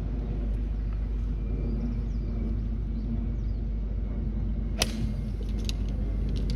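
Golf club striking a teed ball: one sharp crack of a tee shot about five seconds in, over a steady low background rumble.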